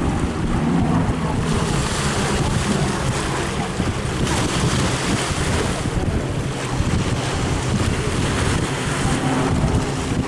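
Piston-engine aircraft droning steadily, with heavy wind buffeting the microphone.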